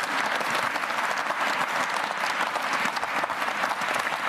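Audience in a lecture hall applauding: many hands clapping in a dense, steady patter.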